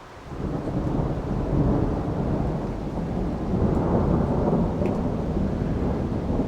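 Thunder rumbling, swelling up within the first half second and rolling on long and low, rising and easing in waves.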